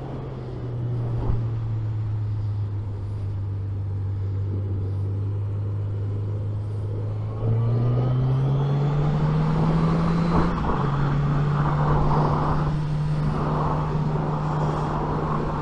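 Suzuki GSX 750's inline-four engine and wind rush, heard from inside a loud helmet while riding. The engine runs steadily. About seven and a half seconds in it gets louder and rises in pitch as the bike accelerates, then drops slightly at a gear change and holds steady.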